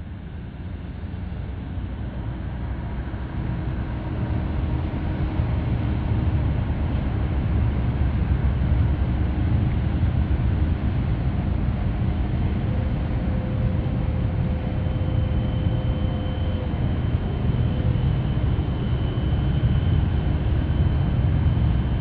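Deep, steady rumble of a large container ship's engines and machinery as the ship passes close by, growing louder over the first few seconds and then holding. A faint high whine joins past the middle.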